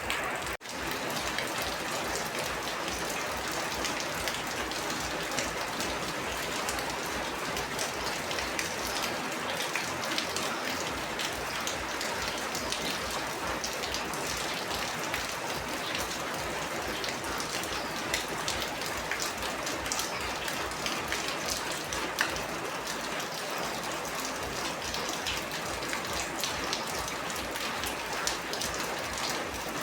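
Rain falling steadily, a dense patter of drops. It cuts out for an instant about half a second in.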